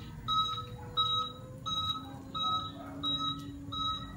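Electric tricycle's reverse-warning beeper sounding an even, steady beep about one and a half times a second while the trike backs up.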